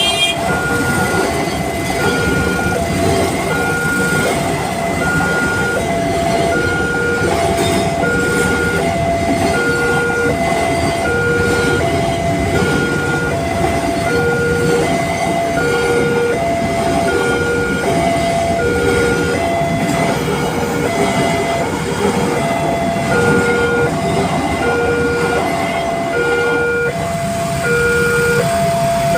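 Railway level-crossing warning alarm repeating an electronic two-note tone, about one cycle a second, over the steady rumble of a passing train.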